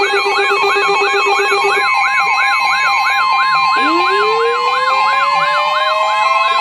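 Several weather alert radios sounding their alarms at once. An electronic siren yelps about three times a second over steady alert tones, and a second siren tone starts low a little before the middle and rises steadily in pitch.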